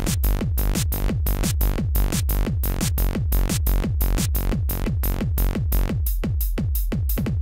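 Techno pattern from a Korg Electribe groovebox: a fast, even beat of kick drums that drop in pitch, over a held bass line. The higher sounds thin out about six seconds in.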